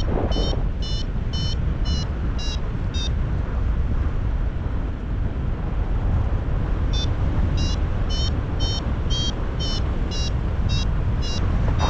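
Paragliding variometer beeping in short high pips, about two to three a second, which signals the glider is climbing in lift. The beeping stops about three seconds in and starts again around seven seconds, over steady wind rumble on the microphone.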